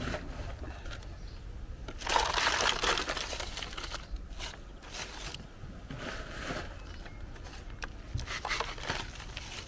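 Damp seed-raising mix tipped from a plastic pot and spread by hand over a plastic seed-cell tray: a series of rustling, scraping pours, the longest and loudest about two seconds in.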